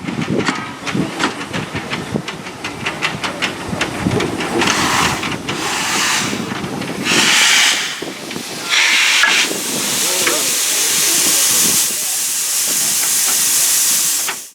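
Steam locomotive 1310, an NER H Class tank engine, hissing steam. Quick sharp clicks come first, then several separate bursts of hiss, then a steady loud hiss that cuts off suddenly at the end.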